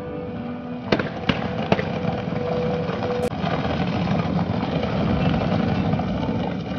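Fireworks display: three sharp bangs about a second in, over a continuous rumbling roar, with held musical notes in the first few seconds.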